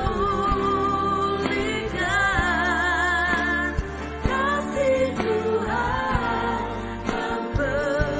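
Live worship band playing a song: a woman sings the melody with vibrato over keyboards, bass and drums.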